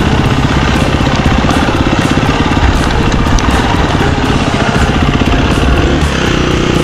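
Husqvarna FE 350 dual-sport motorcycle's single-cylinder four-stroke engine running with a rapid, even firing pulse.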